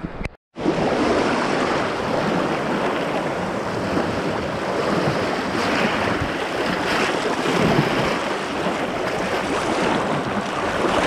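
Rushing river water, a loud, steady wash of noise that starts abruptly about half a second in.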